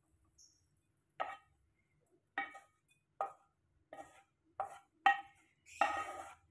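A metal utensil knocking and scraping against a pan as the cooked food is scraped out onto a plate: about seven short ringing clinks roughly half a second to a second apart, with a longer scrape near the end.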